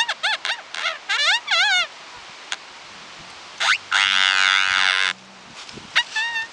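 A tree squeaking: a quick run of short squeaks that waver up and down in pitch over the first two seconds, one long squeal of about a second around four seconds in, and a few short squeaks near the end.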